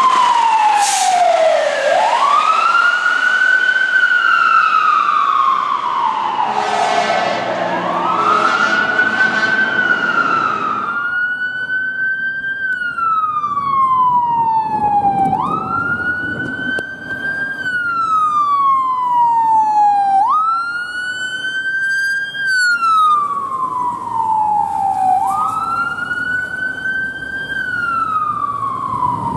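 Fire engine sirens. First a siren wails slowly up and down, with a few air horn blasts about seven to nine seconds in. After a cut, a siren repeatedly climbs quickly and then falls away slowly, about once every five seconds.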